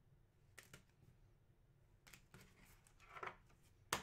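Faint clicks and taps of rigid plastic top-loader card holders being handled and set down on a tabletop, with a sharper click near the end.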